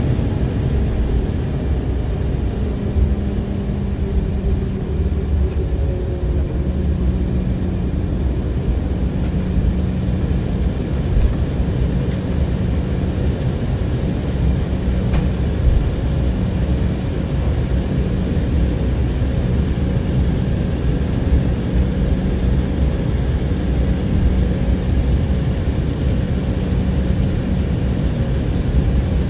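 Cabin noise inside an Embraer 190 airliner with its GE CF34 turbofan engines running: a steady low rumble under a steady hum, one thread of the hum rising a little in pitch over the first few seconds.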